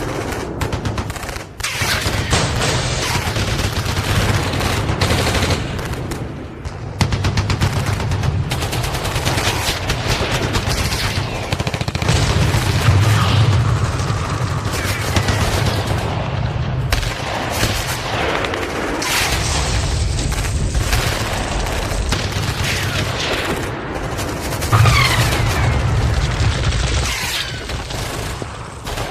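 Battlefield sound effect: dense, continuous gunfire with rapid machine-gun bursts over a steady low rumble of booms, with a few brief sliding whistles.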